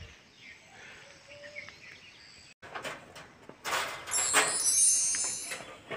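Outdoor ambience: faint at first, then about halfway through a louder stretch of rushing noise with rapid high-pitched chirping calls.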